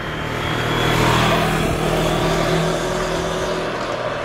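Moto Morini 6½'s 650cc parallel-twin engine pulling hard as the bike speeds up at road speed, mixed with heavy wind rush on the rider's microphone. It is loudest about a second in and then eases off a little.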